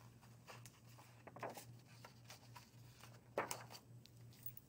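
Faint rustling and handling of a picture book's pages as they are turned, with one louder brush of paper about three and a half seconds in, over a steady low hum.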